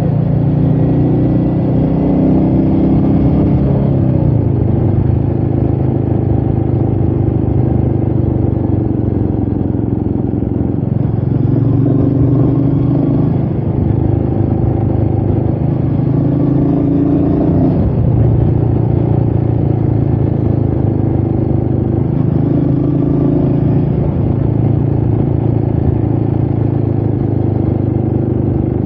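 Royal Enfield Meteor 350's single-cylinder engine running under way, its note rising and falling a few times with the throttle, with wind noise on the rider's chest-mounted microphone.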